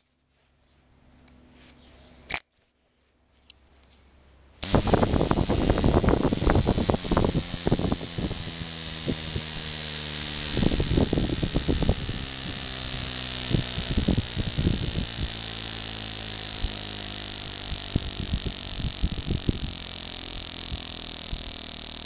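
Miniature CO2 boxer engine for model airplanes starting about four and a half seconds in, after a click or two, and running at speed with a steady buzz and a hiss of escaping gas. It crackles unevenly for the first few seconds, then runs more smoothly.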